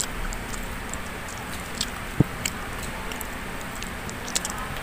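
Close-miked eating sounds: mouth clicks and smacks of chewing, with small wet clicks from grilled chicken being torn apart by hand. There is one louder knock a little over two seconds in.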